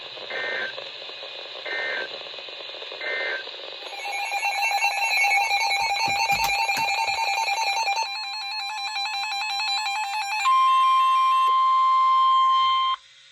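Emergency Alert System signalling over radio hiss: three short warbling data bursts (the SAME end-of-message code), then a stretch of beeping electronic tones at several pitches, then a steady single alert tone near 1 kHz, the loudest part, which cuts off suddenly near the end.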